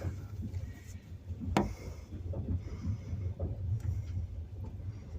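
Passenger train running, heard from inside a compartment carriage: a steady low rumble with scattered light knocks of the wheels and one sharp click about one and a half seconds in.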